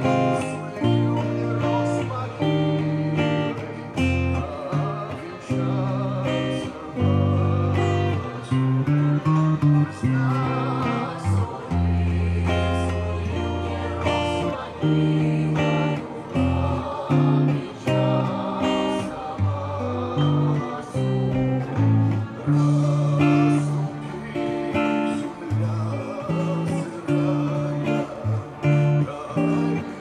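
Les Paul-style electric guitar playing picked notes and chords in continuous phrases, with held bass notes under the melody.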